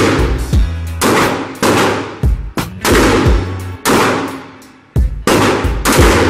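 Gunshots at a shooting range, fired at roughly one a second, each sharp crack followed by a trailing echo.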